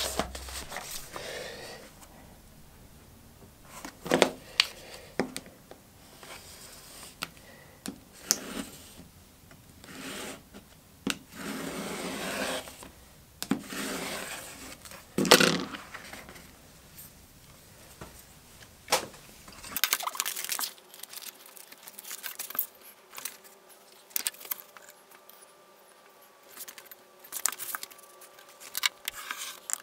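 Leather and a paper template being handled and cut on a cutting mat: rustling and scraping, a rotary cutter drawn along a metal ruler through the leather in a few long scraping strokes, and sharp knocks as the ruler and tools are set down. Later there are scattered clicks over a faint steady hum.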